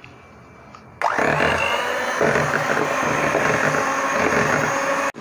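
Electric hand mixer switched on about a second in, its motor whining quickly up to speed and then running steadily as its twin beaters whip cream in a bowl.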